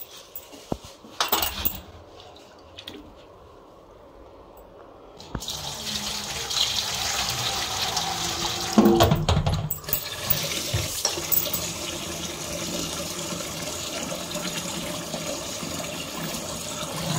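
Kitchen tap running into an aluminium pot of wheat grains in a steel sink as the grains are rinsed. The first few seconds hold only light knocks and swishing. Steady running water starts about five seconds in, with a louder splash about nine seconds in as the water is tipped off.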